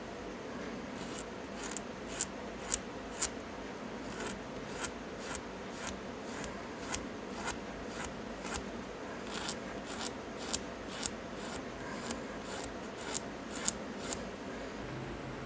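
A small abrasive stick scraped back and forth over a tiny metal pin in short, regular strokes, about two a second, filing or sanding it down by hand. The strokes begin about a second in, pause twice briefly, and stop shortly before the end.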